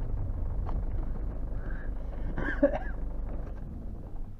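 Vehicle engine running with a steady low rumble that fades away near the end, with a few faint clicks and a brief higher sound about halfway through.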